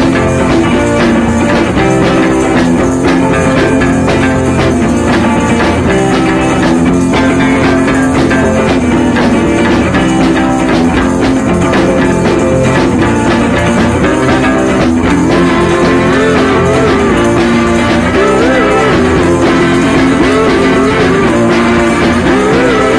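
Rock music with guitar and a drum kit, loud and continuous.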